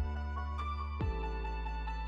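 Background music: held electronic notes over a deep, falling kick-drum beat that strikes at the start and again about a second in.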